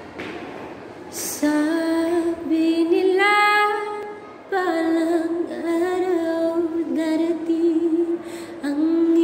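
A single high voice singing unaccompanied in long held notes that bend and glide, starting about a second and a half in, with a short breath break around four and a half seconds. Faint steady room noise comes before the singing.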